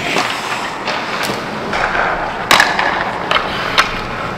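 Ice hockey skates scraping and carving on the ice, with about half a dozen sharp clacks of sticks and pucks during a passing drill.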